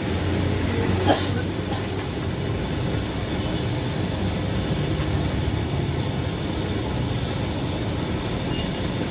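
A steady low engine rumble, with a single sharp knock about a second in.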